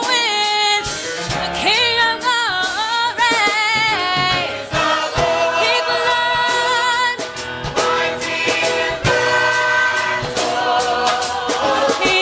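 Gospel choir singing live, a female soloist leading into a microphone over the full choir, with a steady beat underneath.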